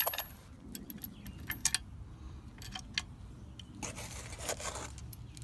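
Loose bolts and washers clinking and rattling in a metal pump-mounting bracket as it is handled: a string of sharp, irregular clicks, with a brief rustle about four seconds in.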